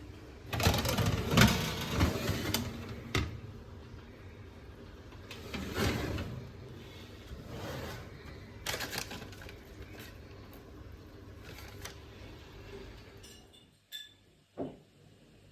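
Objects being handled in a small room: bursts of rustling and clattering with scattered clicks and knocks over a steady low hum. The hum stops suddenly near the end.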